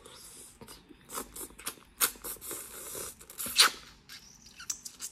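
Close-up mouth sounds of eating a tiger prawn in sauce: sucking and slurping at the fingers, wet lip smacks and chewing, with a sharp loud smack about three and a half seconds in.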